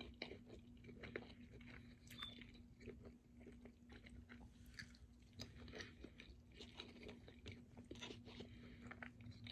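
Faint chewing with small irregular crunches and mouth clicks: a person eating hand-cut french fries.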